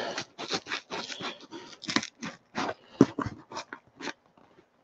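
A knife cutting and prising at a double-walled cardboard box: a run of short, irregular crunches and scrapes, several a second.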